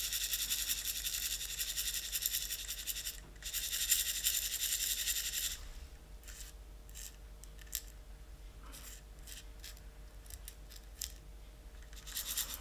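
Copper percussion caps rattling inside a brass Polish Capper tray as it is shaken, in two bouts of about three and two seconds, then scattered light clicks as the caps settle. The shaking sorts the loose caps so they sit right way up.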